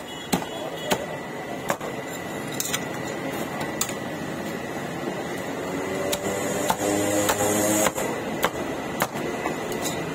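Sharp knocks at an irregular pace, roughly one a second, over steady background noise with a faint high whine.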